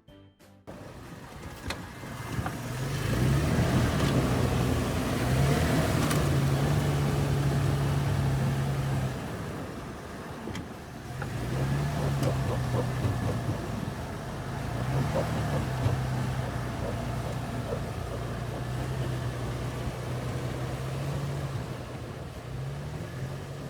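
Toyota FJ Cruiser's V6 engine working under throttle off-road in snow, its pitch rising and holding in steps. It eases off about ten seconds in, then pulls again.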